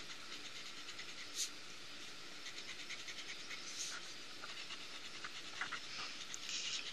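Colored pencil scratching faintly on paper in quick back-and-forth shading strokes, with a few louder scrapes, the strongest near the end.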